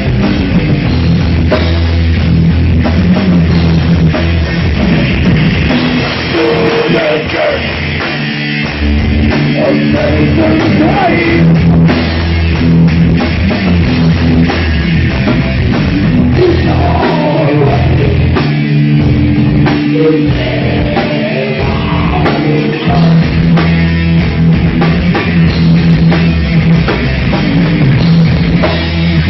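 Rock band of electric guitar, bass guitar and drum kit playing a heavy rock song live.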